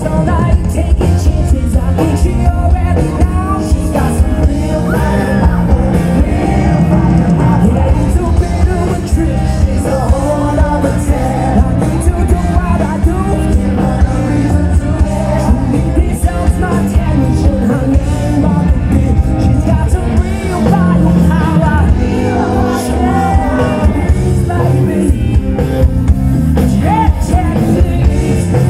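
Live rock band playing with a male lead vocalist singing, loud and heavy on the bass, heard from amid the concert crowd.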